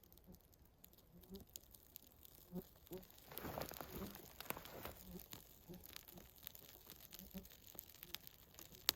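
Rustling and crinkling with soft knocks, swelling into a louder stretch of scraping noise about three seconds in, and one sharp click near the end.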